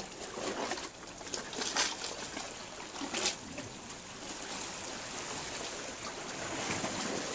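Seawater lapping and trickling in a narrow channel between rocks, a steady wash with two brief louder moments about two and three seconds in.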